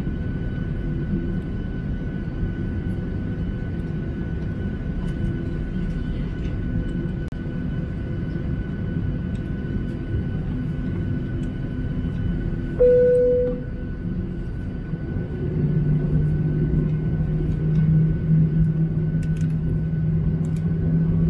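Cabin noise of a Boeing 737-800 with its engines idling on the ground: a steady rumble with a thin steady whine above it. About 13 s in, a short single tone sounds and cuts off. A couple of seconds later a deeper steady hum joins in.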